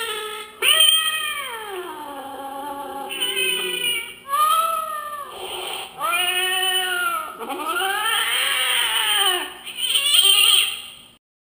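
Store-bought screaming black cat Halloween decoration playing recorded cat yowls: a string of about six long, wavering yowls, each rising and falling in pitch.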